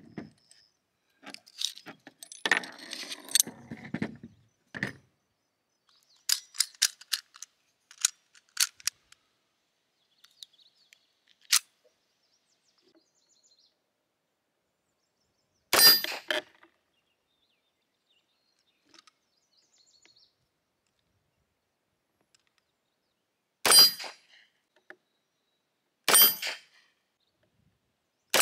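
Metallic clicks and rattles of a Mauser C96 pistol's action being worked by hand on a cartridge that is getting stuck. Then single gunshots from the C96, one near the middle and two more close together near the end, each a separate attempt at cycling the pistol.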